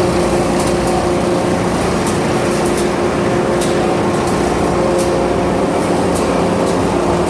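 Pellet mill (one ton per hour) running: a steady, loud machine hum with a few constant tones, and irregular sharp ticks scattered through it.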